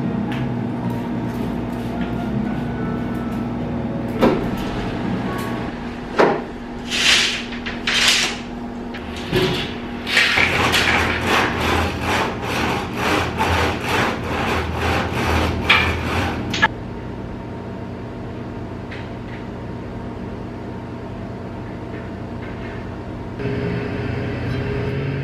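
Wooden venetian blind worked by its pull cord, the slats clattering and rubbing against each other. A few sharp swishes come first, then several seconds of dense rattling that stop suddenly.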